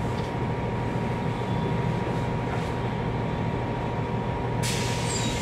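Bus engine and road noise heard from inside the passenger cabin: a steady low drone while the bus moves. Near the end, a sudden hiss starts.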